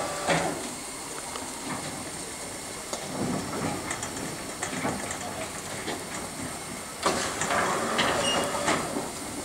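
Class 52 steam locomotive 52 8079 standing in steam, hissing steadily. There is a louder rush of steam about seven seconds in that lasts under two seconds.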